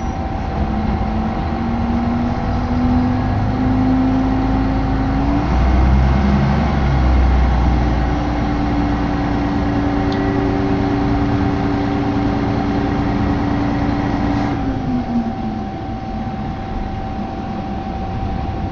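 Diesel railcar heard from inside the passenger cabin while running, over a steady low rumble. The engine note rises for about five seconds as it accelerates under power, then holds steady, and drops away about fifteen seconds in as the throttle is eased off.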